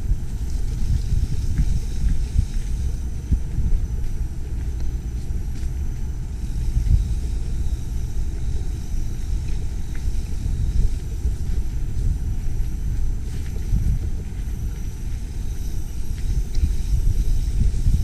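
Mountain bike rolling fast over a dirt forest trail, heard as a steady low rumble that rises and falls unevenly: wind buffeting the riding camera's microphone, with jolts from the tyres on the ground.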